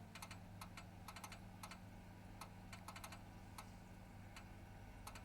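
Domestic boiler with its burner just gone off, giving faint, irregular sharp pinging clicks, some in quick pairs, over a low steady hum. The owner says it is not just the boiler cooling down, because the noise stops completely when the boiler is switched off.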